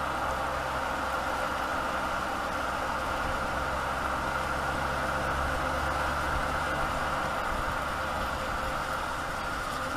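Mercedes-Benz GenH2 hydrogen fuel-cell truck driving, a steady hum and rush of drivetrain and road noise with no change in pitch.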